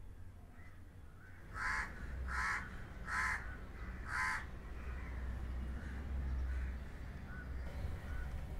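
A crow cawing four times over about two and a half seconds, starting about a second and a half in, over a low steady hum.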